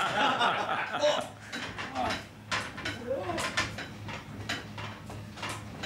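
A heavy black points lever in a mechanical signal-box lever frame being hauled over, giving a string of irregular clicks and clanks from the lever, its catch and the frame.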